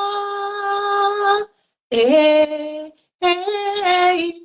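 A woman singing an unaccompanied worship refrain in long held notes: three sustained phrases, each broken off by a brief breath pause.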